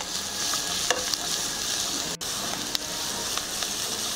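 Chopped onions, garlic and green chillies sizzling steadily in hot oil in a nonstick kadhai while being sautéed toward light brown, with a spatula stirring them and clicking against the pan a few times.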